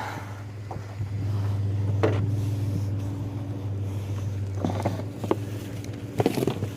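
A vehicle engine running steadily with a low hum, a little louder from about a second in. A few sharp clicks and knocks come at intervals.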